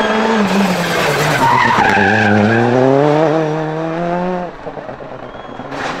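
Rally car engine at full throttle: its note dips, then climbs steadily for about two and a half seconds before cutting off sharply about four and a half seconds in. Tyres skid on the surface partway through.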